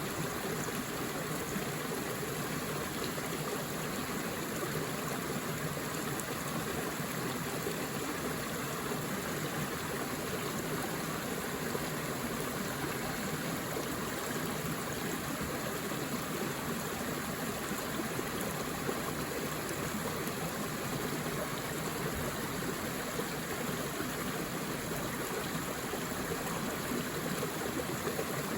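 A forest stream flowing steadily, a continuous even rush and babble of water.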